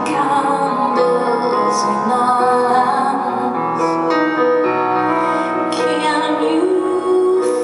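A woman singing with solo piano accompaniment in a live concert performance.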